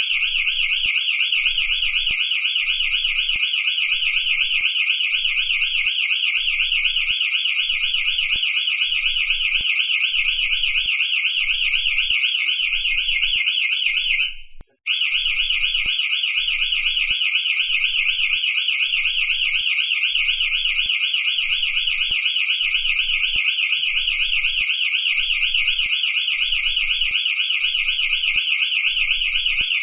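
Electronic house or shop alarm sounding: a loud, high-pitched tone warbling rapidly. About halfway through it cuts out for a moment, then starts again.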